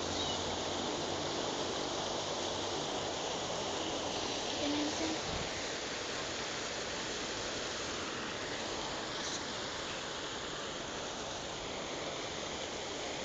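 Waterfall water falling and rushing as a steady, even hiss.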